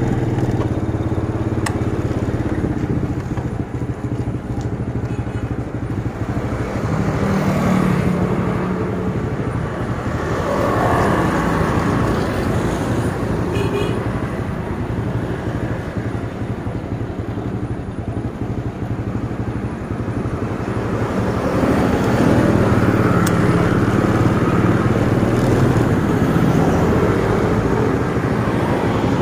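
Street traffic: a motorcycle engine running steadily close by, with cars and motorbikes passing, the passing traffic growing louder over the last several seconds.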